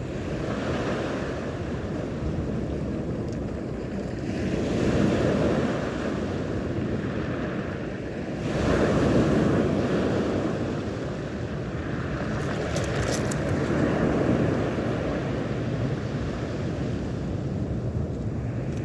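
Sea waves washing in, swelling louder every four or five seconds, with wind rumbling on the microphone.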